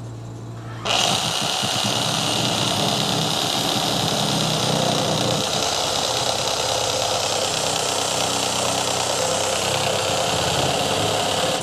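Power saw running steadily as it cuts through the drain pipe. It starts abruptly about a second in and stops suddenly near the end.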